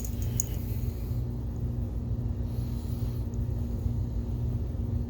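Steady low hum and rumble of room background noise, with a couple of faint clicks just after the start.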